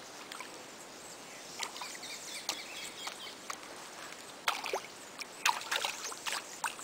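Streamside ambience: a steady hiss of moving water, with scattered sharp clicks and short high chirps that grow busier over the last couple of seconds.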